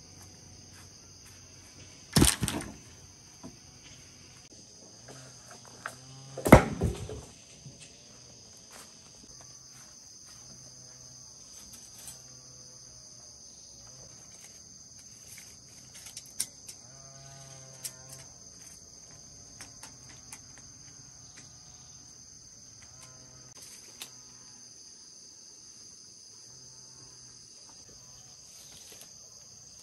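Steady high insect chirring throughout, broken by two loud knocks about four seconds apart near the start. A short, wavering animal call comes around the middle, with a few small clicks scattered through.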